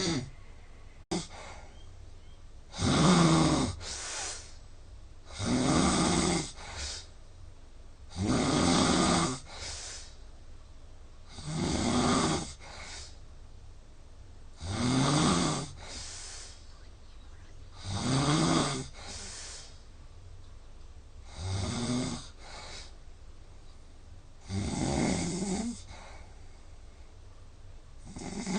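A sleeping man snoring loudly and heavily in a steady rhythm, one rasping snore on each in-breath about every three seconds, with a softer breath after each. There is a single short click about a second in.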